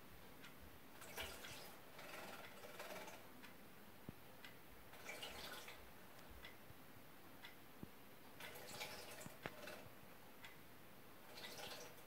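Gloster canary splashing in a clear clip-on bird bath: several short, faint bouts of wing-flicking splashes, with scattered light ticks between them.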